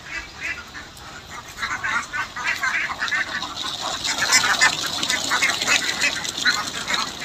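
A large flock of domestic laying ducks quacking, many calls overlapping at once, growing louder about a second and a half in.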